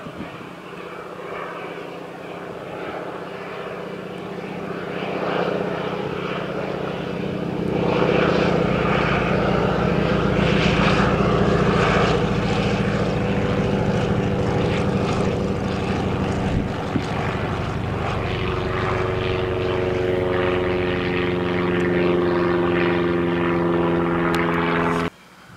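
Single radial piston engine and propeller of a high-wing monoplane flying low overhead as it arrives to land, a steady drone that grows louder over the first several seconds and then holds. It cuts off suddenly near the end.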